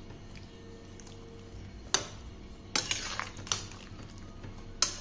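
Metal spatula stirring vegetables and water in a metal kadhai. It is quiet for the first two seconds, then the spatula knocks and scrapes against the pan a few times.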